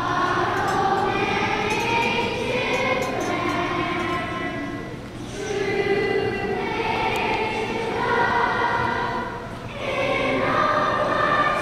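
A large choir singing together in long held phrases, with short breaks between phrases about five and ten seconds in.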